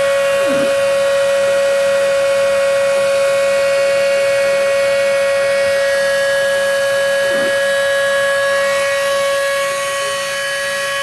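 CNC machine running with a loud, steady whine at one pitch.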